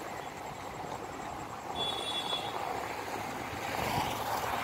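Steady rumble of road traffic, growing louder toward the end, with a brief high whistle-like tone about two seconds in.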